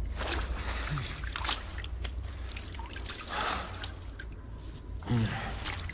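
Film soundtrack ambience: water dripping and trickling over a steady low rumble, with a brief louder sound about five seconds in.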